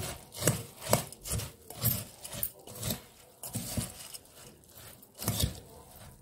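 Spoon stirring and tossing puffed rice with wet chutney in a stainless steel bowl, scraping and knocking against the bowl about twice a second.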